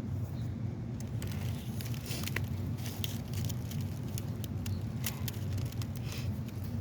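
Cold soil being dug and turned over in a potato bed, with many short, irregular crackles and rustles. A steady low hum runs underneath.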